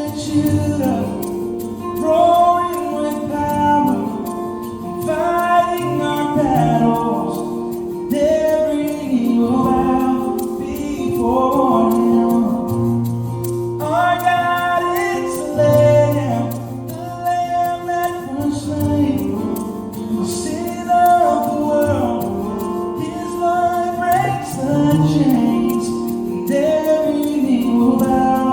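Music with singing: a melodic vocal line sung in phrases over sustained low held notes.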